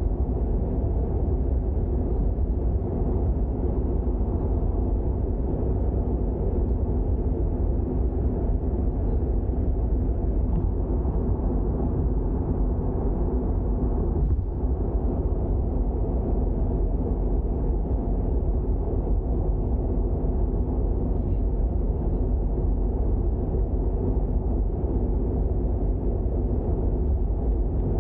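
Toyota GR86 driving at a steady pace: the 2.4-litre flat-four engine's even drone mixed with tyre and road rumble, holding steady in pitch and loudness throughout.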